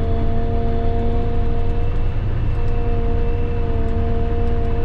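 Kenworth concrete mixer truck's diesel engine running steadily at constant revs: a low rumble with a steady whine over it.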